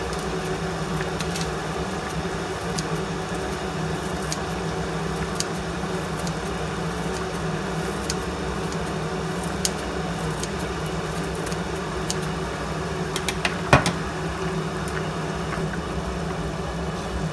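A pot of noodle soup at a rolling boil under a steady mechanical hum, with scattered light clicks as kitchen scissors snip parsley into it; one sharper click comes about three-quarters of the way through.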